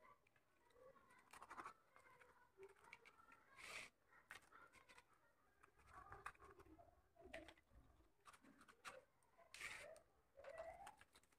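Near silence, with faint scattered clicks and scrapes of a knife cutting through a roti-and-besan snack against a plate.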